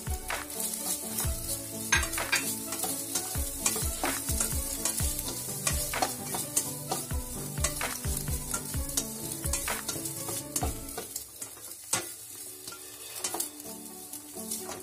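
Egg and vegetables frying in a stainless steel kadai, a steady sizzle under frequent scrapes and knocks as a plastic slotted spoon stirs and tosses them against the pan. The knocks thin out over the last few seconds.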